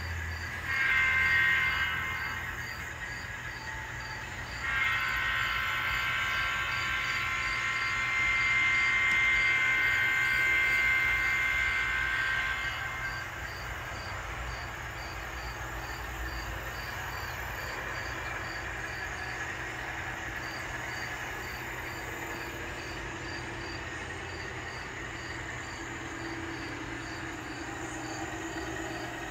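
ESU LokSound sound decoder in an N scale Alco C420 model locomotive playing its multi-chime air horn through the model's small speaker as the train pulls out: a short blast about a second in, then a long blast of about eight seconds. The steady diesel engine sound runs under the horn and carries on alone after it.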